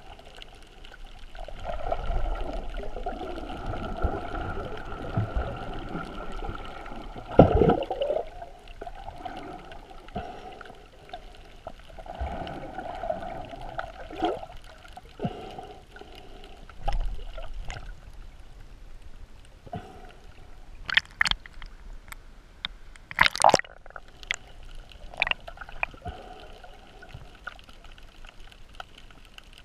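Underwater sound picked up through a GoPro's waterproof housing while snorkelling: muffled sloshing and gurgling of water, with a few sharp clicks and knocks, most of them bunched about two thirds of the way through.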